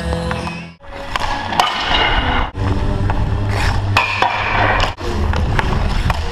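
Hockey skates scraping and carving on rink ice, with sharp clacks of a hockey stick hitting the puck, over music.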